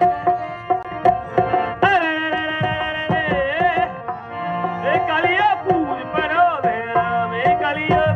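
Rajasthani folk music: a male voice sings an ornamented, wavering melody over hand-drum strokes and a steady held note underneath.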